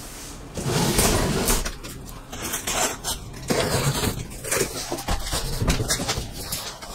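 A cardboard box being opened: packing tape slit along the top seam, then the cardboard flaps being pulled open and rustling, with irregular scrapes and knocks.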